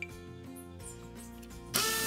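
Quiet background music, then near the end an immersion hand blender switches on suddenly and runs steadily, starting to emulsify egg and oil into mayonnaise.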